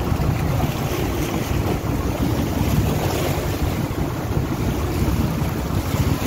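Steady wind buffeting the microphone over the wash of the sea against a fishing boat's hull.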